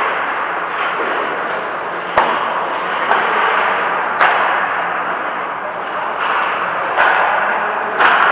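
Steady road noise from a moving vehicle, broken by several sharp knocks at irregular moments, the strongest about two seconds in and near the end.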